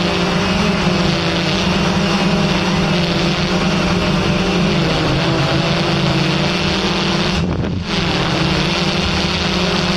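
Multirotor drone propellers humming steadily, a strong low hum with several fainter overtones, mixed with wind noise.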